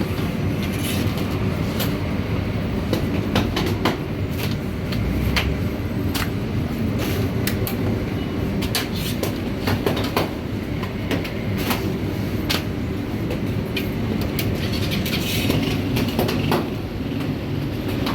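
Bakery machinery running with a steady low rumble, with many irregular short clicks and knocks over it.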